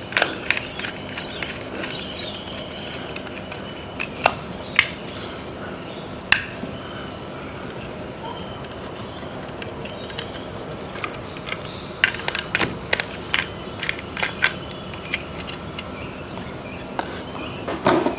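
Scattered small clicks and taps of hand-wiring a plastic surface socket: wires being worked into its terminals and the terminal screws driven with a screwdriver, bunched in a few spells, over a steady faint background.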